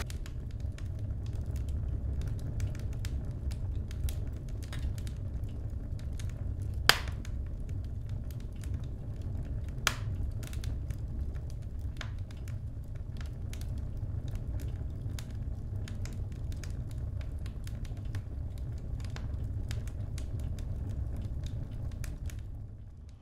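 Wood fire crackling in a tent wood stove: scattered small pops and ticks with two sharper snaps, about seven and ten seconds in, over a steady low rumble.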